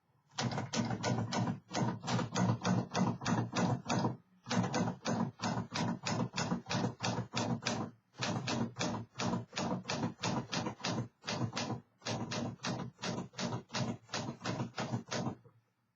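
A 1957 Remington Quiet-Riter portable manual typewriter being typed on: quick, even key strikes, about five a second, in runs broken by short pauses roughly every four seconds. The machine is in good working order.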